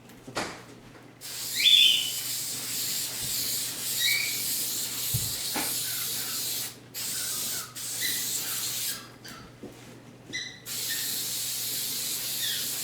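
Aerosol can of spray adhesive hissing in several long bursts with short pauses between them, laying glue down for foam seat padding.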